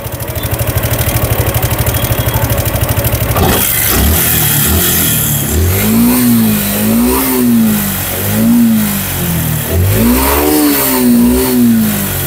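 Motorcycle engine idling with an even, fast beat, then revved up and down repeatedly from about four seconds in. The engine has worn intake and exhaust rockers that no longer meet the valve tips, and the noise comes from the cam and rockers.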